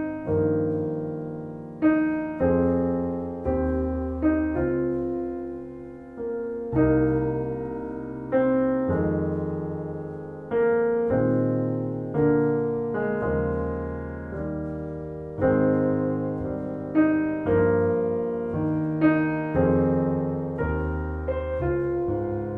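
Solo piano playing a slow piece: chords struck about every one to two seconds, each left to ring and fade before the next.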